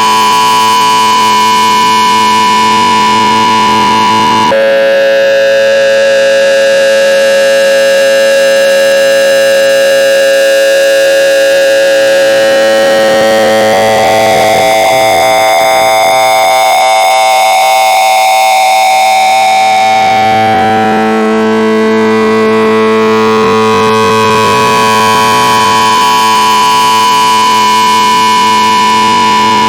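Loud, harsh synthesized electronic tone held steadily, changing pitch a few times: it drops lower about four seconds in, wavers and bends in pitch midway, then steps back to its opening pitch near the end.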